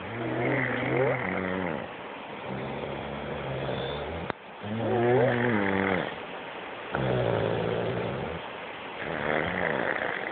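A sleeping person snoring loudly, with a rattling, buzzing snore on breath after breath about every two seconds. The pitch of the snore glides up and down on some breaths.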